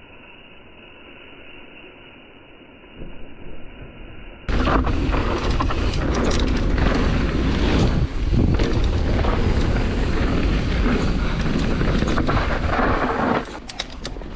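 Mountain bike running fast down a rocky downhill track: wind rushing over the action camera's microphone, with the tyres and chain rattling over rocks. It starts abruptly about four and a half seconds in, after a stretch of quiet, muffled hiss.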